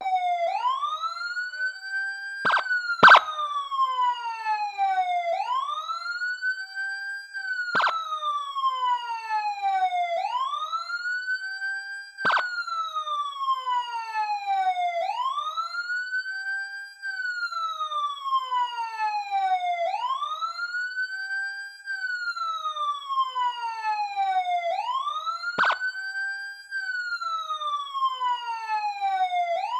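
Police siren in wail mode: the pitch rises in about a second and a half, holds briefly, then falls over about three seconds, repeating roughly every five seconds. A few sharp clicks sound over it, the loudest about three seconds in.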